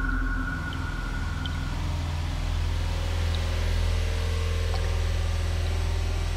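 Droning ambient sound-art soundscape: a deep steady rumble under a high held tone that fades out a couple of seconds in, with a lower held tone coming in around halfway and a few faint scattered ticks.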